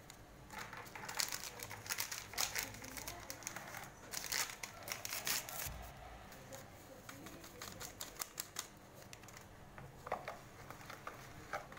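Paper sachets of baking powder crinkling and being tapped as the powder is shaken out over a bowl of batter: a quick run of rustles and small ticks for the first five seconds or so, then a few faint clicks near the end.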